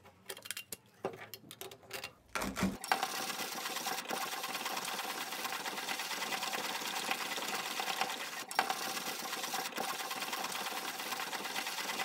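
Vintage brass Turkish mokka hand grinder being cranked, its conical burrs crushing coffee beans in a steady grinding noise from about three seconds in. The burrs are set to the finest setting, just touching, so the grind is slow and comes out powder-fine. Before that there are a few light clicks and taps as the grinder is handled.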